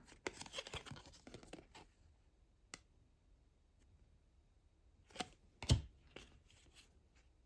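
Hands handling trading cards: a run of rustling and sliding in the first two seconds, then a single tick. A little after five seconds come two sharper taps, then a few faint ones.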